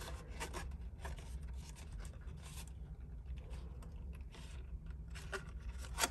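Cardstock rubbing and scraping under the fingers as glued tabs of a paper mailbox are pressed and lined up, in a scatter of brief, light scrapes over a faint low hum.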